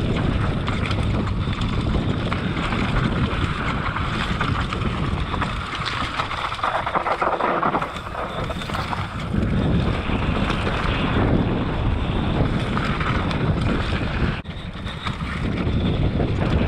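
Wind buffeting the camera microphone as a downhill mountain bike runs fast over a dry dirt trail, with a steady rumble of tyres on the dirt and many small knocks and rattles from the bike over the bumps. The noise eases briefly about fourteen seconds in, then picks up again.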